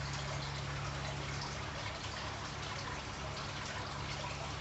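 Steady trickle of running water with a low, even hum underneath.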